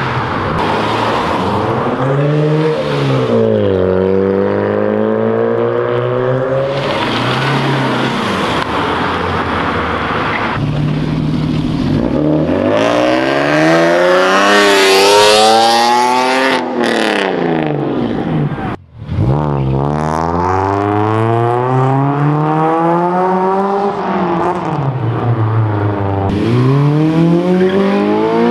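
Several modified cars accelerating away in turn, each engine revving up in pitch and dropping back at the gear changes. The sound cuts out briefly about 19 seconds in.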